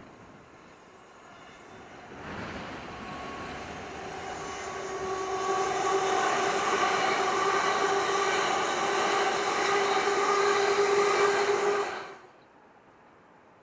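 A Class 350 Desiro electric multiple unit passing at line speed: the rush of its wheels on the rails under a steady electric whine, growing louder as it nears and passes, then cutting off suddenly near the end.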